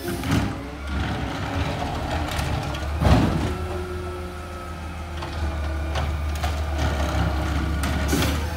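Autocar ACX garbage truck with a McNeilus ZR side-loader body running slowly in an alley: a steady low engine drone with a whine that rises and falls in pitch. Sharp clanks come just after the start and about three seconds in, the second being the loudest.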